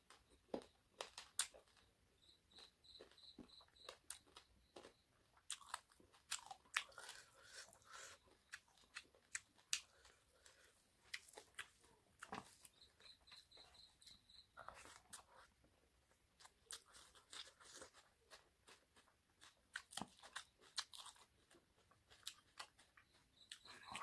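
Close-miked eating sounds of local chicken curry and rice eaten by hand: irregular sharp clicks and crackles of chewing and biting. Twice, a short run of rapid high chirps, about four a second, sounds alongside.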